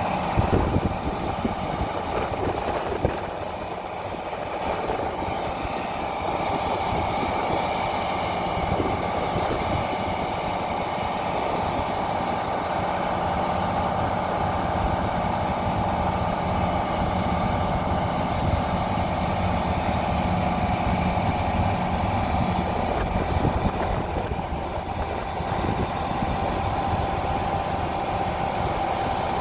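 Heavy harvest machinery running steadily: a diesel engine with a constant whine over it, and a few knocks in the first seconds.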